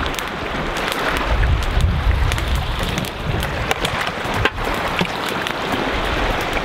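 Wind rushing steadily and buffeting the microphone in low gusts, with a few scattered light clicks and knocks.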